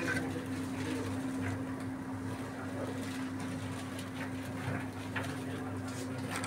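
A steady low mechanical hum, with a few faint clicks and ticks of kitchen utensils.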